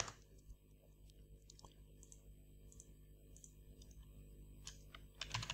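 Faint, scattered clicks of a computer keyboard and mouse, with a short run of keystrokes near the end.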